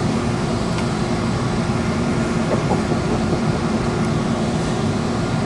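Passenger train running, heard from inside the coach: a steady rumble with a faint steady hum over it.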